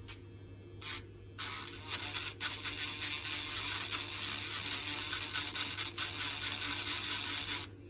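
Cleaning the contacts of a hairdryer's heat selector switch: a short burst of hiss about a second in, then about six seconds of steady hissing scrub that stops abruptly near the end.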